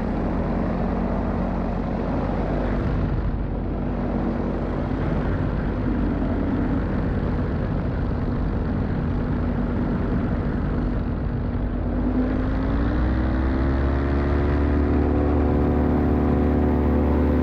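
Small aircraft's propeller engine running under heavy wind rush. About twelve seconds in, the engine note rises and then holds steady, as with the throttle opened.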